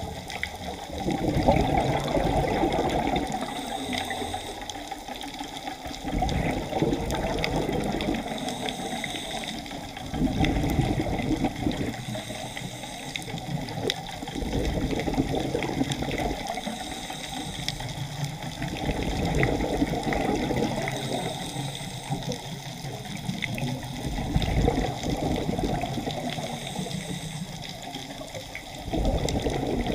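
Scuba diver breathing through a regulator underwater. A rush of exhaled bubbles comes about every four to five seconds, with a faint, short hiss of each inhale between them.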